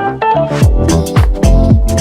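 Background electronic music: held keyboard chords give way, about half a second in, to a steady beat of deep kick drums.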